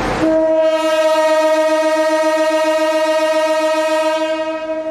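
CC201 diesel locomotive's horn sounding one long, steady blast at a single pitch, starting a moment in and fading near the end: a warning to traffic at a level crossing.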